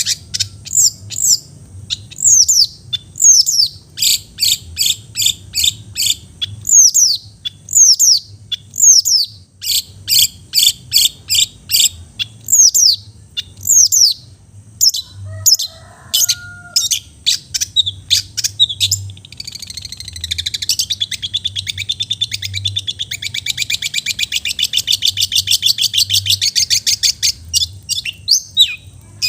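Long-tailed shrike (cendet) singing: a rapid run of sharp, high, downward-sliding notes, turning into a fast chattering trill about two-thirds of the way in.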